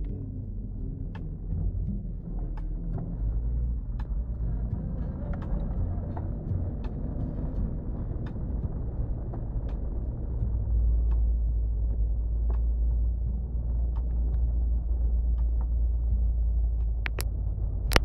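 Low engine and drivetrain rumble heard inside the cabin of a four-wheel-drive vehicle driving over a rough dirt track, with scattered sharp clicks and knocks. The rumble gets a little louder about halfway through.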